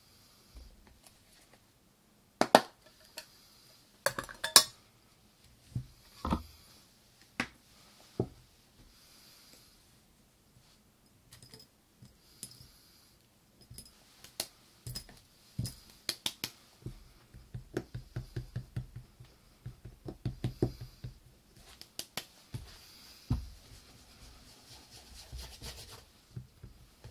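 Small hard objects clinking and knocking as they are handled and set down on a hard surface, with two sharp knocks a few seconds in and a run of quick light taps in the second half.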